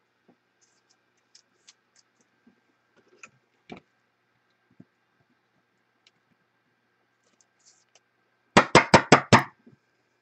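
Five quick, sharp knocks on a wooden desktop, about six a second, near the end. Before them there are faint scattered small clicks.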